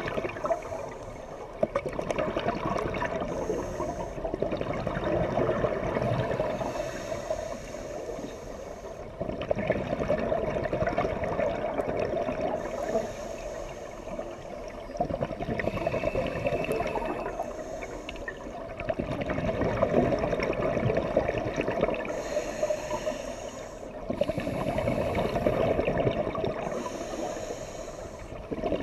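Scuba diver breathing through a regulator underwater: short hissing inhalations alternate with gurgling bursts of exhaled bubbles, a breath every few seconds.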